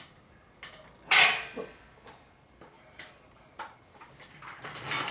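Metal clanking while a floor jack is set in place under the car: one loud ringing metallic clank about a second in, a few light clicks after it, and a longer rattle near the end.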